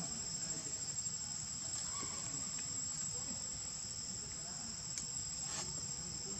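Insect chorus droning steadily at a high pitch, two unbroken tones held throughout, over a low rumble, with a couple of faint clicks near the end.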